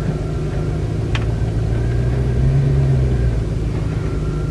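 A 2007 Chevy Silverado pickup's engine running as the truck backs up, heard from inside the cab: a steady low rumble that swells briefly about two and a half seconds in. A single sharp click just after one second.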